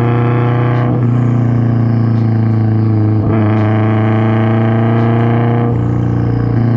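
A 2004 Subaru WRX STI's turbocharged flat-four engine and aftermarket exhaust drone steadily at a constant cruise. There is a deep, even hum with overtones, and the tone shifts slightly a few times.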